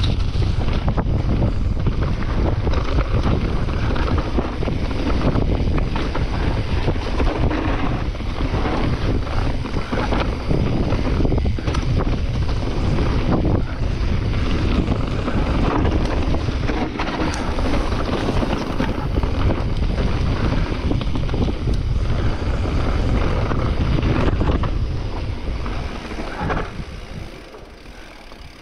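Wind buffeting the microphone of a camera on a mountain bike riding a forest trail, with frequent knocks and rattles from the bike over rough ground; it eases off sharply near the end as the bike slows.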